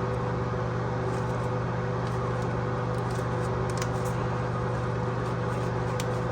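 A steady mechanical hum, like a fan or motor running, with a few faint clicks and taps, one near the middle and one near the end.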